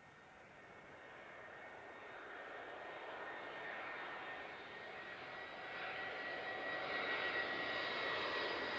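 Jet airliner's engines growing steadily louder as the aircraft approaches, with a steady high whine over the engine roar.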